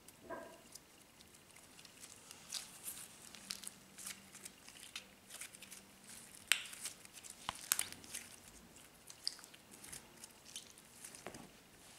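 Store-bought slime with old makeup mixed in, squished and kneaded by hand, giving irregular small clicks and crackles. A brief squeak comes just after the start.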